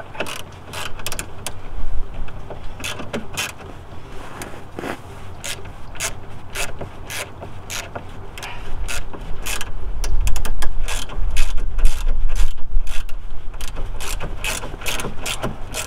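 A hand ratchet clicking in irregular runs as the headlight mounting bolts are tightened, with a low rumble about halfway through.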